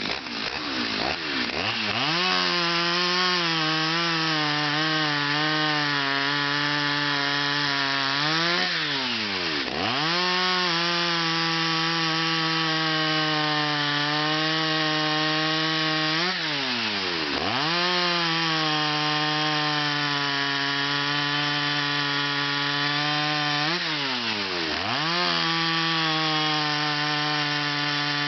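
Stihl 029 Super two-stroke chainsaw with a full chisel chain running at high revs, cutting wood. The engine climbs from low revs in the first two seconds, holds a steady pitch, and three times drops off sharply toward idle before revving straight back up.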